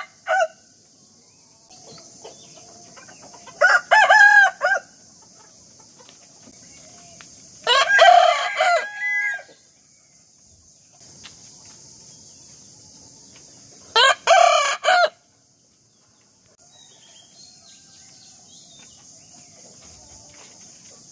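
Roosters crowing: the end of one crow right at the start, then three full cock-a-doodle-doo crows a few seconds apart, each lasting one to two seconds, with quiet gaps between.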